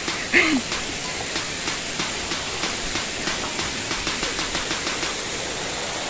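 Steady rushing noise of falling water, with a brief vocal grunt about half a second in.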